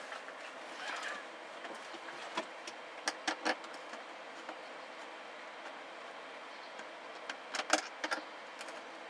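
Sharp plastic clicks and knocks from hands working the original ceiling speaker out of a telehandler cab's plastic headliner. There are a few clicks about two to three and a half seconds in and another group near the end, over a steady hiss.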